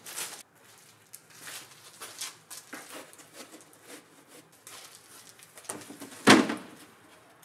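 Wooden pallets and plywood sheets being handled: scattered light knocks and scrapes of wood on wood, then one louder thud near the end as a plywood sheet is set down on the pallet.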